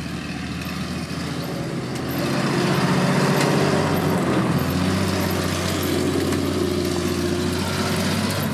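1965 American LaFrance 900 series pumper's 608 cubic inch inline-six engine running as the fire truck drives past, growing louder about two seconds in as it comes close. Its engine note steps slightly higher about four and a half seconds in.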